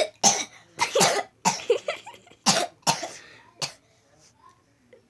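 A person coughing on purpose in a quick run of about seven harsh, exaggerated coughs, stopping a little under four seconds in.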